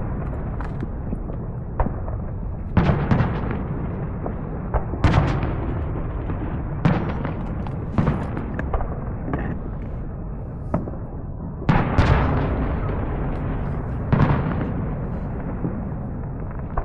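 Fireworks going off: loud, sharp bangs every second or two, each dying away in a rumbling echo.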